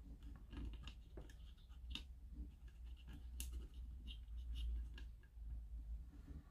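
Faint handling noise: fingers pressing a small circuit board down into a plastic lamp housing, with a scatter of light clicks and taps over a steady low hum.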